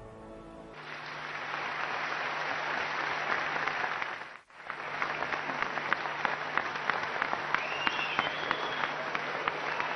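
Large audience applauding, building up about a second in. The applause cuts out briefly about four and a half seconds in, then carries on.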